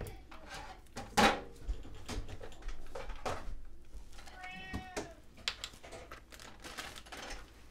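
A cat meows once about halfway through, a single rising-and-falling call. Around it are small clicks and knocks as a plastic salad-dressing bottle is handled and its cap is taken off and set on the counter.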